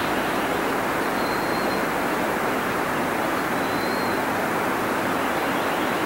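Steady rush of falling water from a mountain waterfall, with two faint, brief high whistles, about a second in and again about four seconds in.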